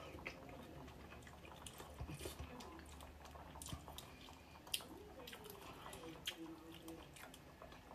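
Faint sounds of a person eating spoonfuls of hot chicken soup: chewing and mouth noises with a few soft clicks, the sharpest about halfway through.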